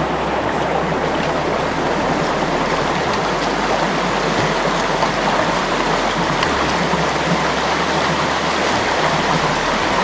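River water rushing steadily: a loud, even wash of a flowing backcountry stream, starting suddenly at the outset.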